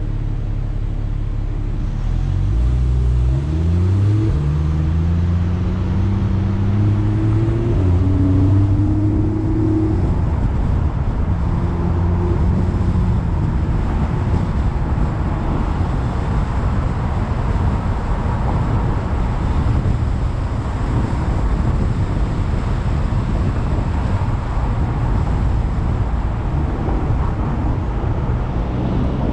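Car idling at a stop, then pulling away: the engine note rises as it accelerates over the first several seconds, then gives way to steady tyre and road noise at cruising speed.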